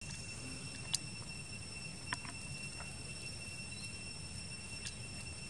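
Steady, high-pitched insect trilling with a low background rumble, broken by a few sharp clicks about one, two and five seconds in.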